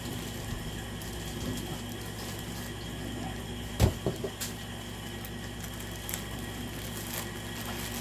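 Hands handling a rolled diamond painting canvas in a plastic sleeve on a table: a sharp knock nearly four seconds in, followed by a few lighter taps and rustles, over a steady room hum.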